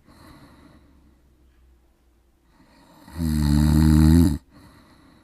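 A man snoring very loudly: after a quiet breath, one long, deep snore starts about three seconds in and lasts over a second, followed by a softer breath.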